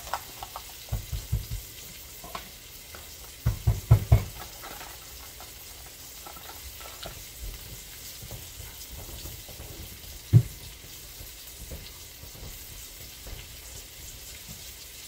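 Flour-breaded squirrel pieces sizzling steadily as they fry in a pan turned down low. A few dull knocks come about a second in, a louder cluster around four seconds in, and a single one near ten seconds.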